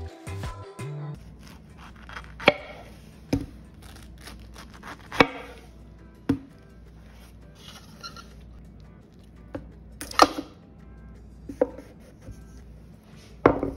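Knife cutting through a pineapple and striking a wooden cutting board: several sharp, separate chops a second or more apart, over quiet background music.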